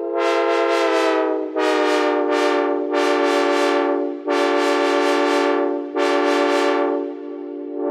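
Synthesized Nathan narrow-font K5LA five-chime train horn sounding a string of short and long blasts. Its chord hangs on with hardly a break between blasts and eases off near the end.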